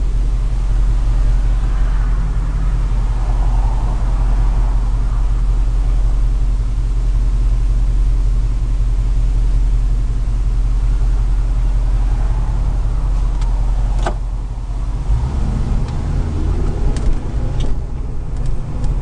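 A 1973 Camaro's 350 V8 with a two-barrel carburettor running as the car is driven, a steady low engine drone. A sharp click comes about fourteen seconds in, and the engine note changes soon after.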